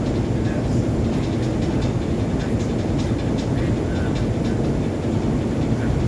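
Steady low rumble of a ship's engine heard on deck, with faint irregular ticking above it.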